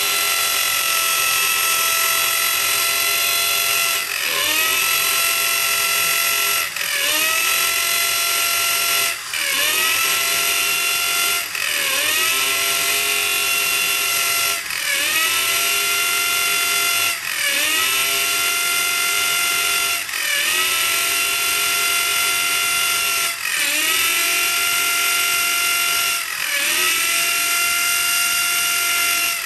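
Electric hand drill boring holes into a hardwood block, its motor whining steadily. The pitch dips briefly and recovers about every two to three seconds.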